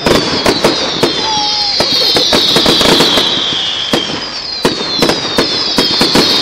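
Fireworks display: a rapid run of sharp bangs and cracks, over which a high hiss falls in pitch again and again, each fall lasting about a second.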